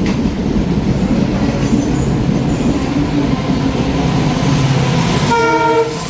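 Indian Railways WDP-4D diesel locomotive hauling a passenger train: a steady low rumble of engine and wheels, then a short horn blast about five seconds in.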